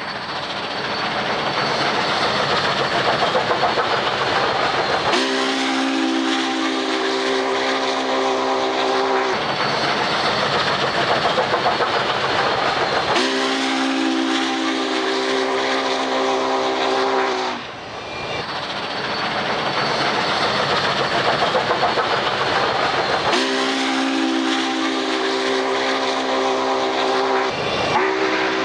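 Union Pacific No. 844 steam locomotive's whistle sounding a chord in three long blasts of about four seconds each, with a fourth starting near the end, over a steady rush of noise.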